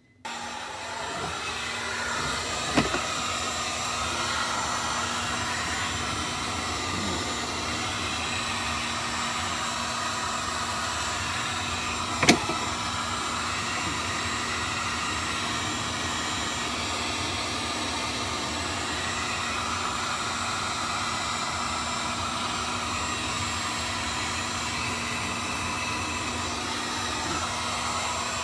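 Heat gun switched on and running steadily, blowing hot air to melt ice packed around a freezer's evaporator and fan. Two brief knocks cut through it, about 3 and 12 seconds in.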